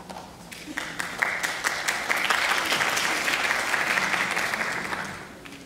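Audience applauding: scattered claps that thicken into steady applause, then die away about five seconds in.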